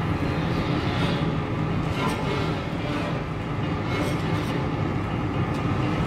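Burning oil-well gas blowout at a wooden derrick: a steady, deep rush of fire, with a few sharp cracks through it.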